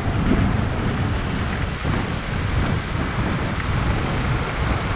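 Wind rumbling and buffeting on the camera microphone as a Piaggio MP3 Yourban three-wheeled maxi-scooter pulls away and gets under way, its engine and the traffic buried in the rush of wind.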